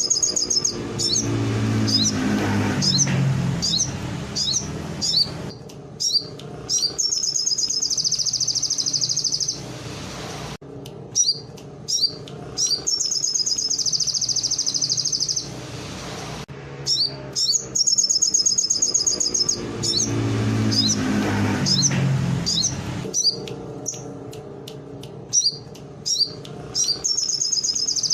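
A sogon songbird singing a canary-style song: quick chirps and long buzzing trills. A lower falling sound comes twice, and the same run of phrases repeats after about sixteen seconds.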